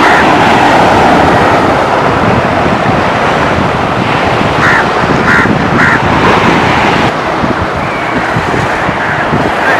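Sea surf breaking and washing up a sandy beach, a loud steady rush, with wind buffeting the microphone. Three brief calls are heard about halfway through.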